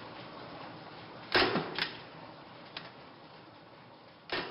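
A few short, sharp knocks or clicks, the loudest about a second and a half in and another near the end, over a faint, slowly fading hiss.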